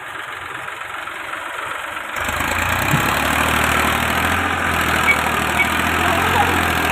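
Massey Ferguson diesel tractor engine running steadily as it hauls a loaded earth trolley through mud. For about the first two seconds only a hissy noise is heard; the low engine hum then comes in and stays steady.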